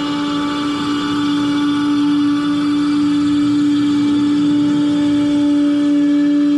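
Table-mounted wood router running at speed, a loud steady whine that holds one pitch throughout.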